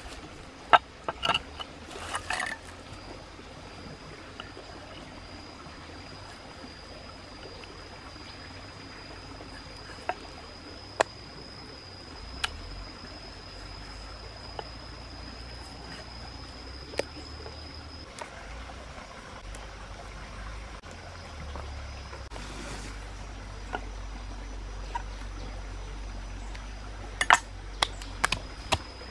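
Cleaver knocking a few scattered times on a wooden cutting board as raw chicken wings are cut, over a steady background trickle of water. A thin steady high tone runs through the first half or so, and a quick run of sharp knocks comes near the end.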